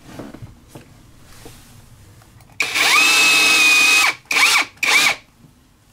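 Cordless drill boring a pilot hole down through a caravan floor: about two and a half seconds in it runs for a second and a half, spinning up to a steady whine, then gives two short bursts.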